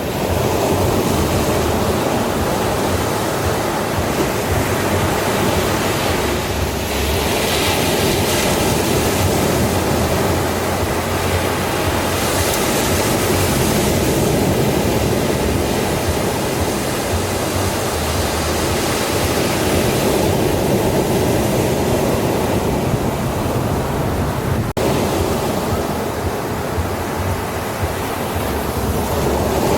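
Ocean surf washing on a beach: a steady rush of wave noise, swelling into a brighter hiss a few times as waves break and wash in.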